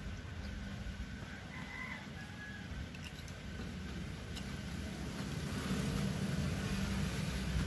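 Eating sounds: chewing on fried chicken and a metal spoon scooping and clicking faintly in a cardboard meal box, over a steady low hum.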